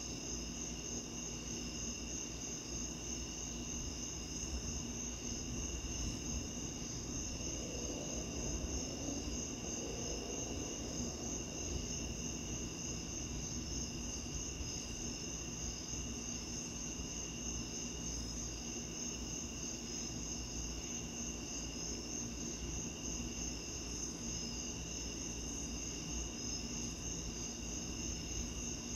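Night chorus of crickets trilling steadily at several pitches, the highest a fast pulsing trill, over a low steady background noise.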